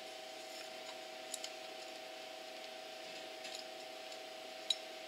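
A few faint, sharp metallic clicks from hand work on the exhaust extension's flange fasteners at the cylinder of a two-stroke ATV engine, the sharpest near the end, over a steady hum.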